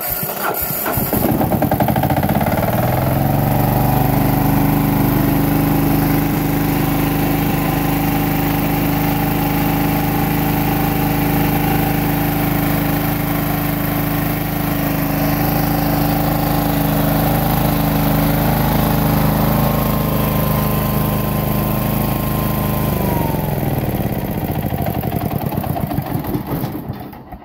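Kohler diesel engine of a 7.5 kVA generator starting on the key and picking up speed over the first couple of seconds, then running steadily. Near the end the key is switched off, the fuel shut-off solenoid cuts the fuel, and the engine's pitch drops as it runs down to a stop.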